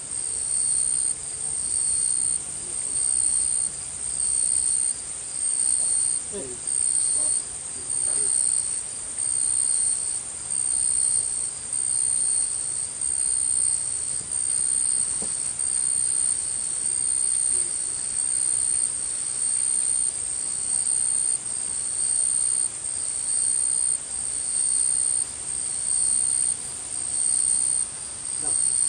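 A night insect calling: a loud, shrill, high-pitched buzz in even pulses just under a second long, repeating about every second and a quarter without a break.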